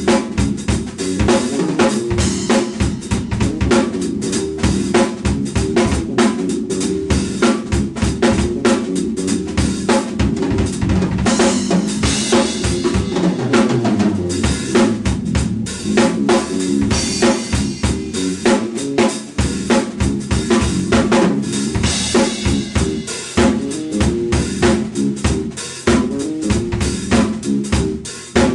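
Yamaha drum kit played fast and without a break: bass drum, snare and cymbals in dense, continuous strokes.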